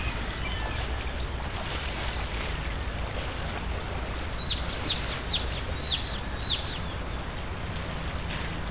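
Shallow river flowing steadily over stones. About halfway through, a bird calls a quick series of short falling notes.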